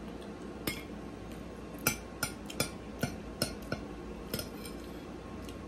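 A metal fork clinking and scraping against a plate while food is scooped up, about eight light, separate clinks.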